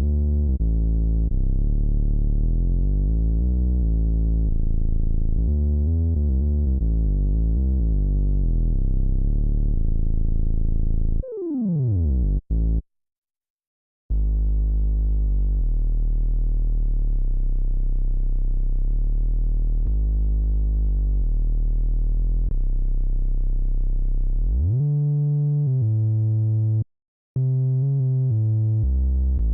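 Prophet-5 polyphonic synthesizer playing dark, filtered sustained chords over deep bass notes. About eleven seconds in, the pitch dives downward and the sound cuts out for a second or two. A long held low note follows, which sweeps upward near the end and breaks into short, choppy notes.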